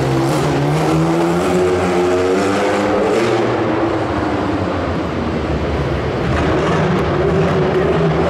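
Tyrrell Formula 1 car's engine running and revving as it drives around, its pitch rising and falling with the throttle.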